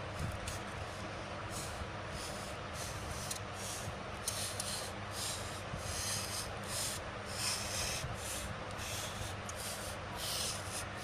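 Utility knife blade scraping along the edge of a thermocol (expanded polystyrene foam) sheet in repeated short strokes, trimming and smoothing the edge. The strokes come closer together and run longer from about four seconds in.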